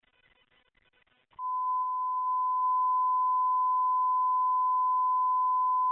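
Radio dispatch alert tone heard over a scanner: after about a second of faint static, a single steady, loud tone starts and holds unbroken for over four seconds, announcing the fire call that follows.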